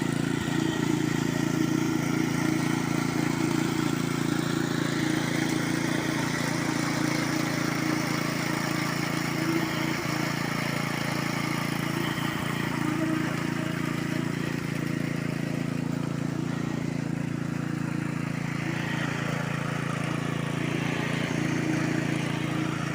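Diesel engine of a concrete pump running steadily at a constant speed.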